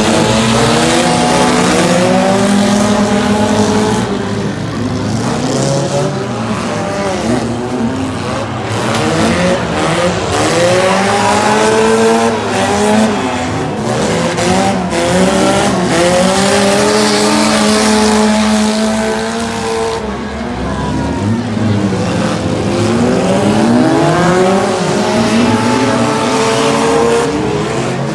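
Engines of several small cars revving up and down together as they race around a dirt figure-8 track. The pitch rises and falls over and over, with a steady low drone underneath.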